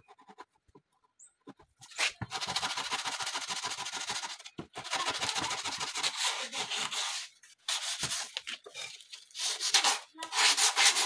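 Wooden bed-frame edge being rubbed by hand, most likely with sandpaper, in quick back-and-forth strokes. The rasping comes in several runs of one to two and a half seconds with short pauses, starting about two seconds in and ending in a few shorter bursts.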